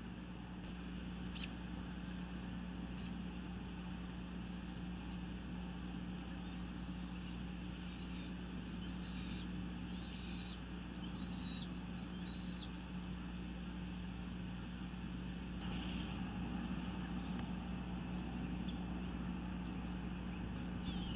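Steady hiss with a low, constant hum from an outdoor nest-camera microphone. About nine to thirteen seconds in comes a short series of faint, high bird chirps, evenly spaced, with one or two more later on.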